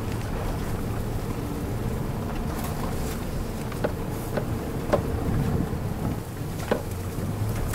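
Off-road 4x4's engine running at low speed, heard from inside the vehicle as a steady low drone, with a few short knocks as it bounces along a rough track.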